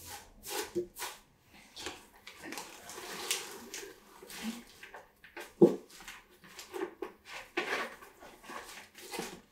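Paper and packing material rustling and crinkling as items are lifted out of a cardboard box, with short handling knocks and a few brief low sounds, the loudest a little past halfway.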